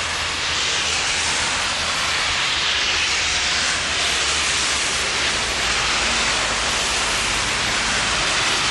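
Steady, loud rushing hiss of street traffic on a slushy, snow-covered road, with a low hum beneath it.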